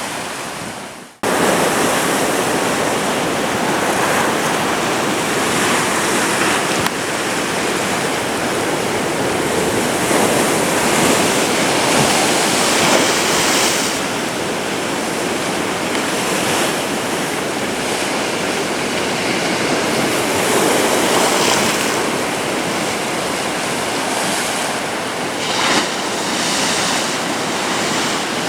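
Atlantic surf: waves breaking and washing up the beach in a steady rush of noise. The sound briefly cuts out about a second in and then comes back.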